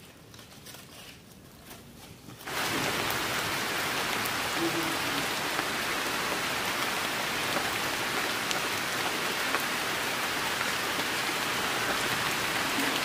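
Heavy rain falling steadily, starting suddenly about two and a half seconds in after a quiet opening.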